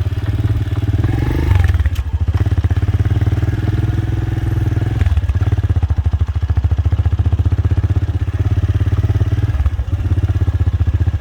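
Motor vehicle engine running with a steady, fast low pulsing, heard close up as if from the vehicle on the move. The sound eases briefly about five seconds in, then picks up again.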